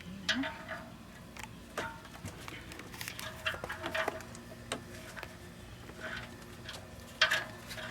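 Irregular light metallic clicks and taps, some with a short ring, from a new oxygen sensor being handled and threaded by hand into a car's exhaust manifold.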